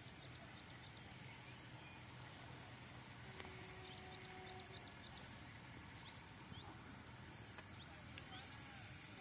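Quiet rural outdoor ambience: a faint steady background with many short, high, rising chirps scattered through it. A faint held tone sounds for about a second and a half a little over three seconds in.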